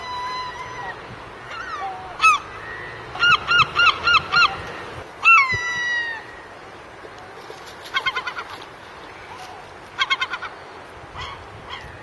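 Gulls calling: a held note, then runs of short repeated calls with one longer call that falls in pitch in the middle, and two quicker runs of short calls later on.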